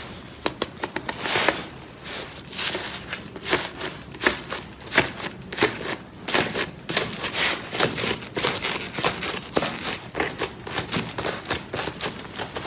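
Slime being squeezed and played with by hand, making many irregular sticky clicks and pops, several a second.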